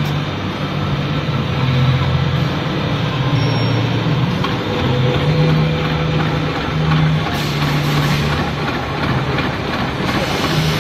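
Four-axis CNC brush-making machine with two drilling spindles and a tufting head running: a dense, steady mechanical clatter over a low motor hum that shifts in pitch every second or so.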